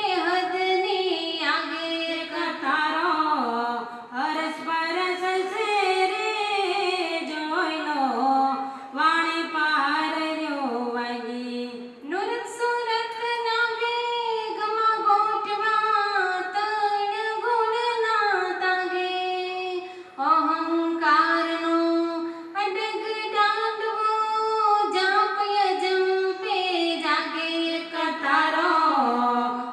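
A woman's solo voice singing a Gujarati devotional bhajan in long, gliding melodic phrases, with short pauses between lines.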